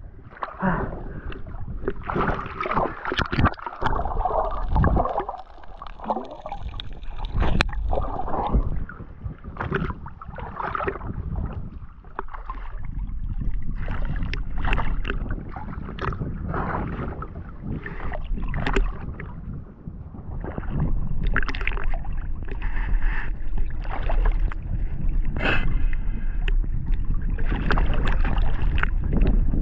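Sea water splashing and sloshing close to the microphone at the waterline, with irregular slaps of small waves and kicked-up spray. A low steady rumble grows underneath in the second half.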